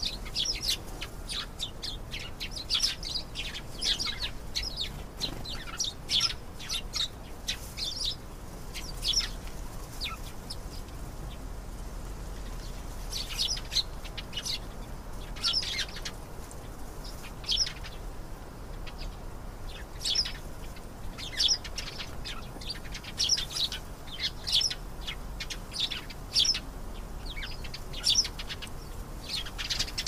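Domestic canary singing: runs of short, high chirps and trills, broken by a pause of a few seconds about ten seconds in.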